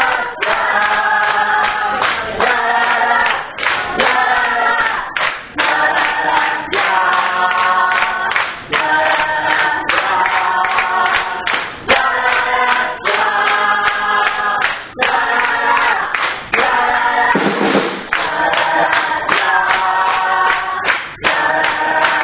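Unaccompanied singing in sung phrases of a second or two, broken by short gaps, with sharp percussive hits.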